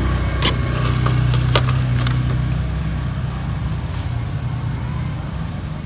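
A motor vehicle's engine running steadily as a low hum that slowly fades, with two sharp clicks about half a second and a second and a half in.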